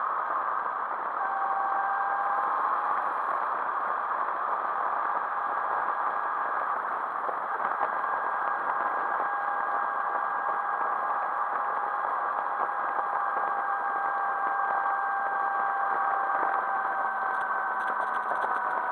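Motorcycle riding at a steady cruising speed, heard from a camera mounted on the bike: an even drone of engine and wind noise with a few faint held tones, unchanging throughout.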